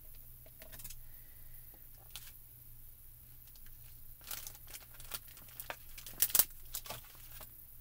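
Crinkling and small clicks of thin plastic as clear stamps are handled and peeled from their sheet, thickening about halfway through, with the loudest crackle a little past six seconds in.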